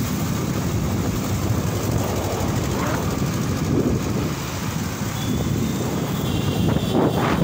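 Wind buffeting the microphone and steady road and traffic noise while riding on a moving two-wheeler.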